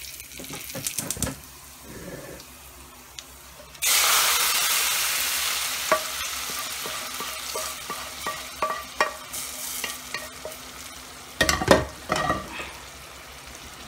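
Hot tempering oil with fried dry red chilies, garlic and panch phoron hitting a pot of wet vegetable curry: a sudden loud sizzle about four seconds in that slowly dies down, with crackling pops throughout. A few knocks of the pans at the start and again near the end.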